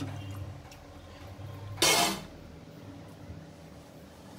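Metal cookware scraping once, briefly, about two seconds in: a pot lid or ladle rasping against a metal pot. A low steady hum runs under it.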